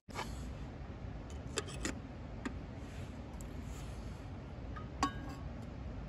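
A few light clinks and taps of camping cookware being handled, over a steady low background noise. The loudest comes about five seconds in, as the aluminium kettle and steel cup meet, and rings briefly.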